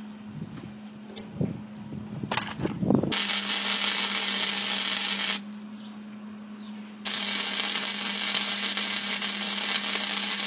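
Electric arc welding on steel: two long spells of arc hiss, the first starting about three seconds in and lasting about two seconds, the second starting about seven seconds in. A few knocks come before the first spell, and a steady low hum runs underneath.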